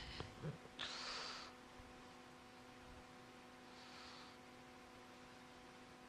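Faint scratching of a marker writing on a whiteboard, in a few short strokes, over a steady low electrical hum. A brief soft hiss about a second in is the loudest moment.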